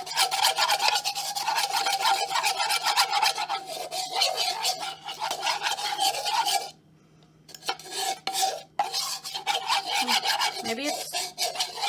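Metal spoon scraping around a plastic mixing bowl, stirring powdered sugar and water into a glaze. The rapid scraping strokes stop briefly about seven seconds in, then start again.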